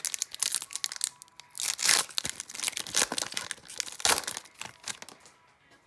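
Foil hockey-card pack wrapper being torn open and crinkled by hand: a dense run of sharp crackles, loudest about two seconds in, dying away near the end.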